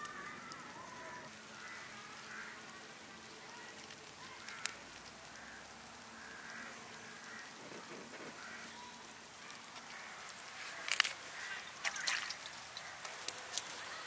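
Faint, repeated calls of fowl, with a few sharp clicks, most of them in the last few seconds.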